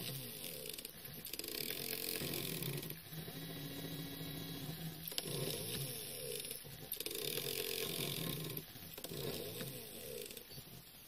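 Small stepper motors from old DVD drives whining as they drive the lead screws of a homemade CNC pen plotter. The pitch jumps between steady tones as each move changes speed, with brief pauses between moves.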